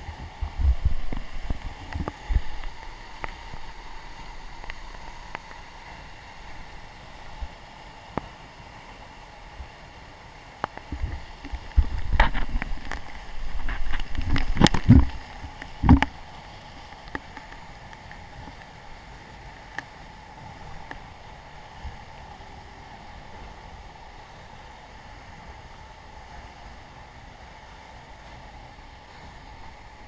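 Steady rushing of a large waterfall with wind buffeting the microphone, broken by low thumps and knocks from a handheld action camera being jostled, around a second in and again in a louder cluster about halfway through.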